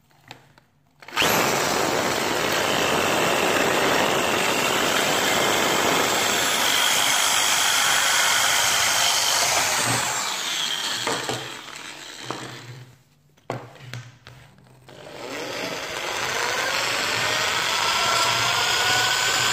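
Electric drill spinning a small brush against the plastic neck of a Corvette C4 coolant reservoir, scouring the surface clean for epoxy. It starts about a second in and runs steadily, falters and stops briefly past the middle with a few short bursts, then runs up again with a rising whine.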